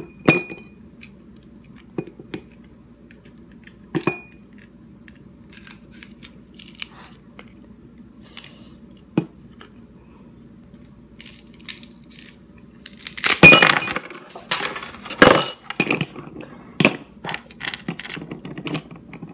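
Ice cubes being cracked out of a plastic ice cube tray and dropped clinking into a drinking glass: a few single clinks at first, then a loud burst of cracking and clattering past the middle, and a few more scattered clinks near the end.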